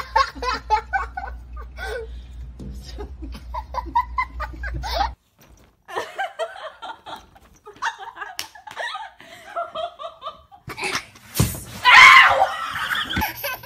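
People laughing in short, choppy bursts, with a steady low hum under the first five seconds and a loud burst of sound about twelve seconds in.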